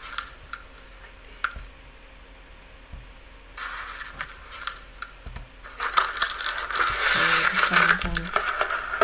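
Handling noise from a phone being moved: scattered clicks, then rustling and rubbing that starts about three and a half seconds in and grows louder over the last three seconds.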